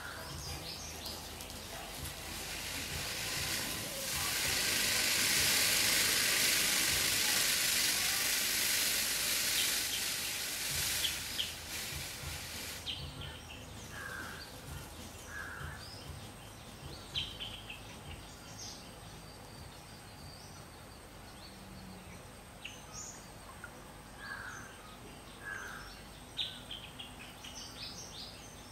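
Garden ambience. A loud, even, high buzzing hiss builds over a couple of seconds, holds, then cuts off suddenly about halfway through. After it come scattered short bird chirps over a faint steady high insect whine.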